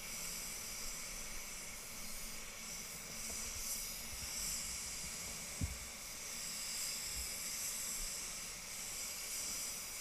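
DeVilbiss GTI Pro spray gun with a T2 Transtech air cap hissing steadily as compressed air atomises clear coat onto a car panel. One short low knock about halfway through.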